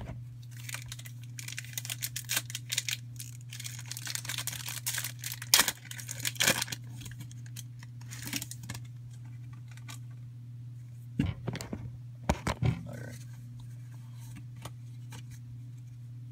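Foil booster-pack wrapper of a Pokémon trading card pack being torn open and crinkled: crackly tearing and rustling for the first nine seconds or so, then a few sharper crinkles or knocks between about eleven and thirteen seconds in, over a steady low hum.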